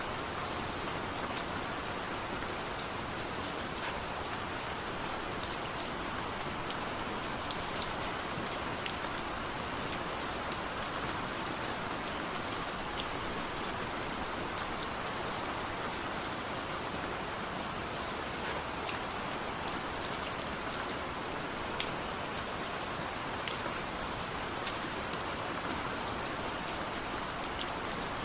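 Steady rain falling, an even hiss with many separate drops ticking sharply on a surface.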